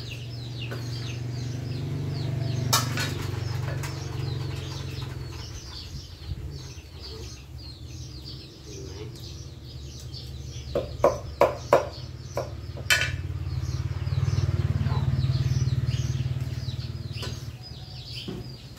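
A knife chopping cooked chicken on a round wooden chopping block: a single sharp knock about three seconds in, then a quick cluster of knocks around eleven to thirteen seconds in. Birds chirp throughout, and a low rumble swells and fades twice.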